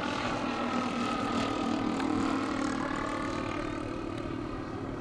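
Propeller engines of a large radio-controlled twin-engine Beechcraft 18 model (3.6 m wingspan) running steadily in flight. The drone's pitch drifts slightly lower as the model passes.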